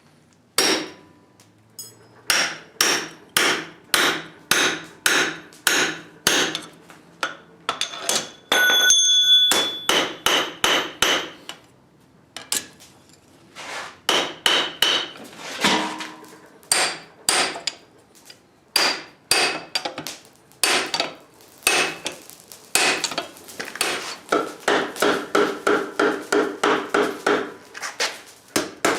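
Blacksmith's hand hammer striking hot metal on an anvil, forging in a steady rhythm of about two blows a second, with the anvil ringing after some strikes. Near the end the blows come quicker and lighter.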